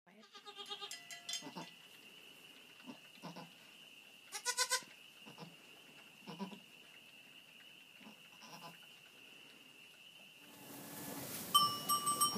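Goats bleating: a series of short, high bleats, the loudest and most wavering about four seconds in, with softer, lower calls between. Near the end the background grows louder and a loud, sharp clink with a ringing note is heard.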